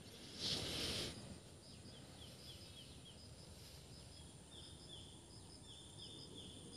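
Forest ambience: a faint high steady insect drone and runs of short falling chirps, with a brief rush of noise about half a second in.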